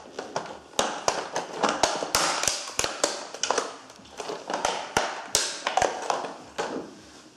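Toy model car creaking and clicking under the weight of a foot pressing on its roof and body: a rapid, irregular string of sharp clicks and small cracks that thins out near the end.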